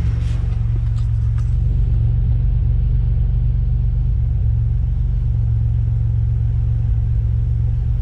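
Supercharged 3.8-litre V6 (3800 Series II L67) of a Pontiac Bonneville SSEi idling with a steady low rumble, with a few faint clicks in the first second and a half.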